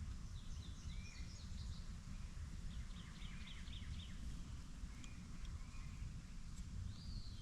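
Wild birds chirping in short runs of quick high notes, over a steady low rumble.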